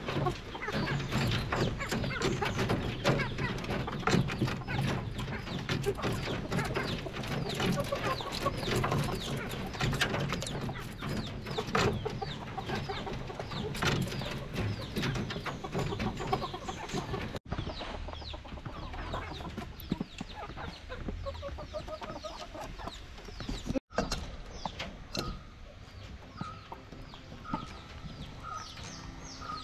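Chickens clucking in a coop, with many sharp clicks mixed in.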